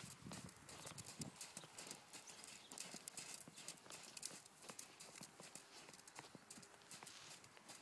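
Appaloosa mare's hooves beating faintly and rhythmically on sand footing as she trots on the lunge line, a choppy, tired trot.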